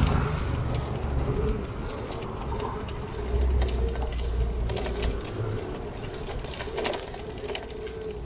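Bicycle chain and freewheel clicking and rattling as the bike rolls along, over a steady hum, with a low rumble that swells about three seconds in and fades about two seconds later.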